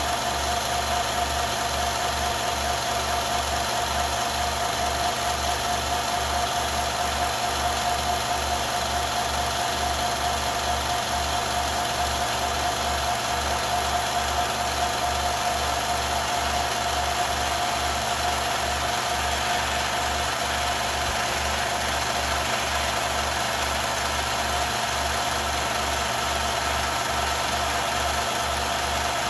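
Film projector running: a steady mechanical whir with a constant whine over an even low pulsing.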